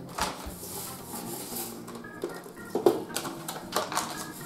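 Dry corn muffin mix pouring from a cardboard box into a stainless steel mixing bowl, with the box rustling and tapping as it is emptied.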